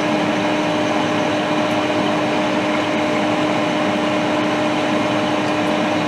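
A small blower fan running steadily on the repair bench, a constant whir with a steady low hum.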